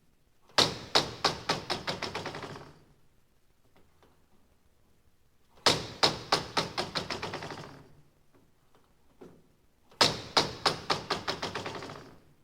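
Sound effect of an object falling and clattering down, heard three times: each time a loud first impact, then a rapid run of about ten quicker knocks that fade out over about two seconds.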